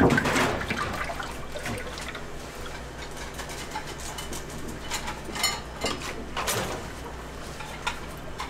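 Cooking oil pouring in a steady stream from a square metal tin into a stainless steel deep fryer, splashing into the pooled oil, loudest at the start. A few short sharp clicks near the middle.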